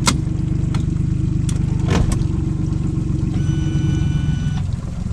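A small boat's outboard motor running steadily at low speed, with a few sharp knocks in the first two seconds. Past the middle there is a steady high beep that lasts about a second.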